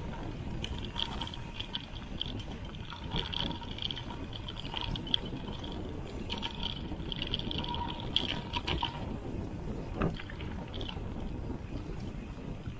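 Mountain bike riding fast down a dirt singletrack, heard from a camera on the handlebars: a steady rumble of tyres and wind with the bike rattling, a few sharp knocks over bumps, and an on-and-off high buzz.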